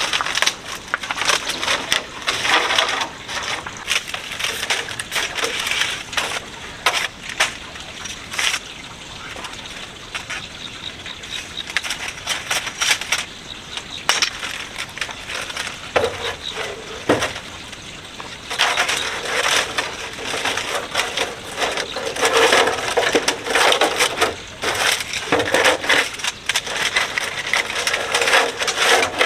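Dry wooden strips being worked by hand into a wall panel, with irregular crackling, snapping and sharp knocks.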